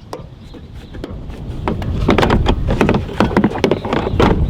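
Wind buffeting the microphone: a low rumble that grows louder about a second and a half in, with scattered rustling and clicks.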